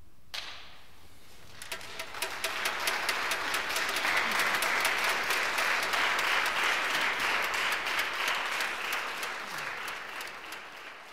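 Audience applauding a chamber orchestra's finished performance, preceded by one brief sharp sound. The clapping builds quickly to a dense, steady crackle, then slowly fades near the end.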